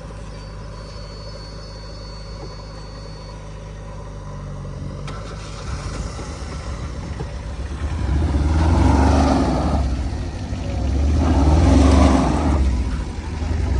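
Tata Ace mini truck's engine running steadily, then revved hard in three surges in the second half as the truck tries to drive out of the mud it is stuck in.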